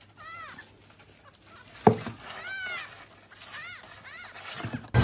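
A young kitten mewing: about four short, high-pitched mews, each rising and falling. A single sharp tap a little before the second mew is the loudest sound.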